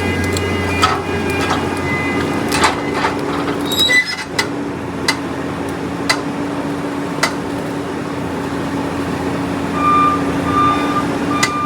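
Skid steer engine running steadily, with a series of sharp metal clanks. Near the end a reversing alarm beeps three times.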